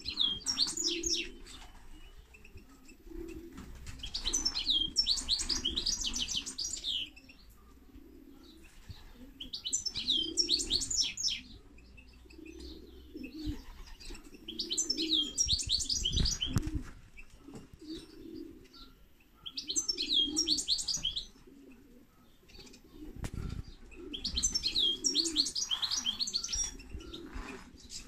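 European goldfinch singing in six bursts of fast, tinkling twitter, each a few seconds long, with short pauses between. Low repeated coo-like notes and a few dull bumps sound underneath.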